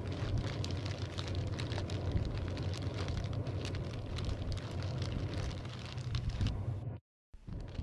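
A cloth tent burning: dense crackling of the flames over a low rumble of wind on the microphone. The sound cuts out completely for a moment about seven seconds in, then resumes.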